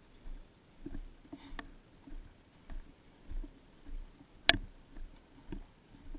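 Walking footsteps on grass, soft thumps about every 0.6 s with light gear rustle, heard through a waterproof camera housing. A single sharp click about two thirds of the way through is the loudest sound.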